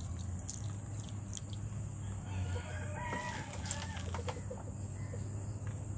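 A bird calling once, a drawn-out call of about a second and a half starting a little over two seconds in, over a low steady hum.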